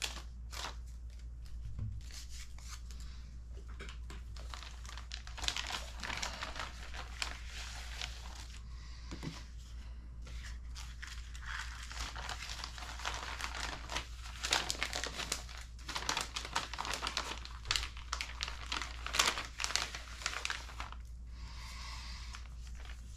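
Clear plastic kit bag crinkling and rustling as it is cut open with scissors and the paper decal sheets inside are pulled out and handled. The crackling is dense throughout and loudest in the second half, over a steady low hum.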